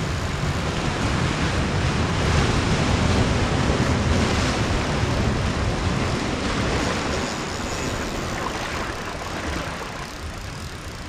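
Ocean surf breaking and washing over a rocky boulder shore, swelling a couple of seconds in and easing off near the end, with some wind on the microphone.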